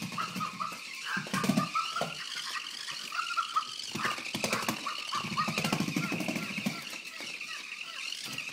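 Longhaired Weimaraner puppy making high, wavering whining squeals while it plays with a stuffed toy, broken by short low play-growls, the longest a little past the middle.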